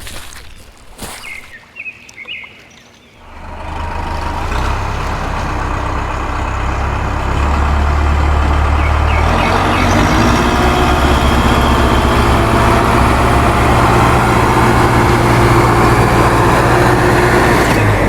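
A few light clicks, then a motor starts about three seconds in and runs steadily with a deep rumble, growing louder about nine seconds in.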